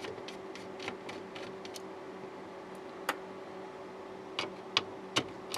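Small screws being driven back into a computer monitor's board and frame with a screwdriver: scattered light clicks and ticks, with a few sharper clicks in the second half, over a faint steady hum.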